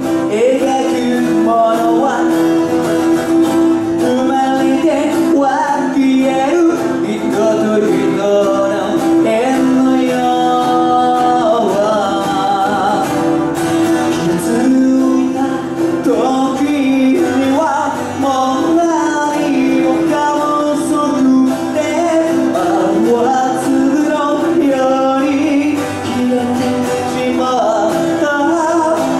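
A man singing a slow song while playing his own acoustic guitar.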